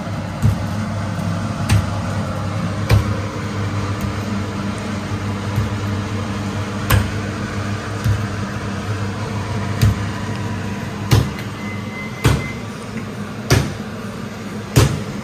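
A steady machine hum, with sharp clicks and knocks coming every second or two at an uneven pace.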